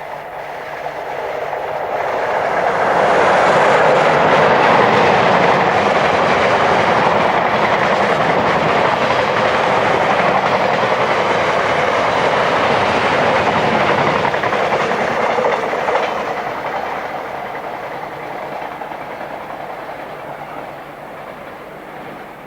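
Electric-locomotive-hauled train passing at speed: the rush of wheels on rail builds over about three seconds, stays loud for some twelve seconds, then fades away.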